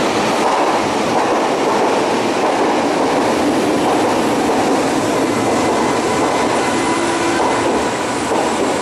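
Berlin U-Bahn train pulling into an underground station: a steady rumble of steel wheels on the rails, echoing off the station walls. In the second half, faint thin squealing tones from the wheels and brakes join in as the train slows.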